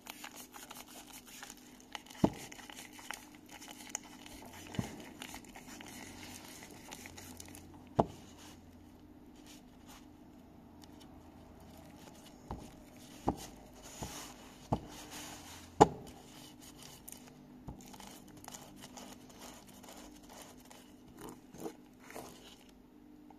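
Gloved hands working grease into a needle roller bearing: a soft crackling, crinkling rustle of glove and grease, with a handful of sharp clicks from the bearing's steel ring and cage as it is handled.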